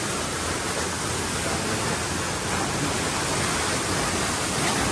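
Steady rush of a river waterfall pouring into a rock pool, the water churning white at its foot.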